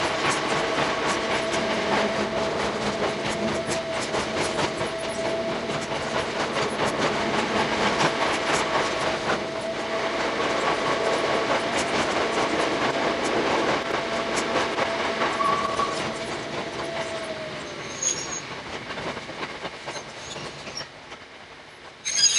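Hakone Tozan Railway 2000-series electric train running through a tunnel, heard from the cab: wheels clicking rapidly over the rail with a steady high tone. Near the end the tone slides down and the running noise fades as the train slows into the signal station, and there is a short loud burst just before the end.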